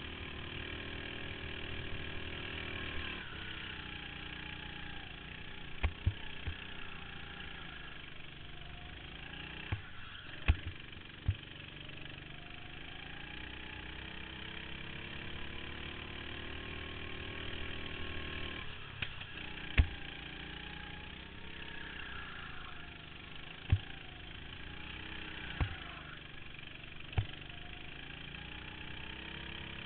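Go-kart engine heard from on board the kart, its pitch rising in long swells as the kart speeds up and dropping away as it slows for corners, with sharp knocks now and then.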